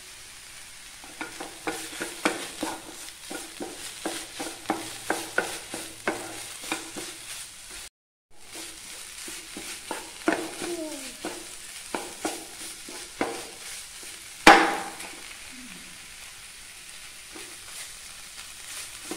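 Wooden spatula scraping and tapping a non-stick frying pan, stirring ground coconut paste and curry leaves as they dry-roast, with a faint sizzle underneath. The sound cuts out briefly near the middle, and about two-thirds through comes one sharp knock, the loudest sound.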